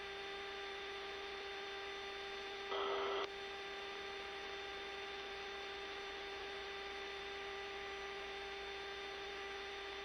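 Steady electrical hum with a tone near 400 Hz under an even hiss, the background of a C-5 Galaxy cockpit voice recording. A brief louder burst lasts about half a second, about three seconds in.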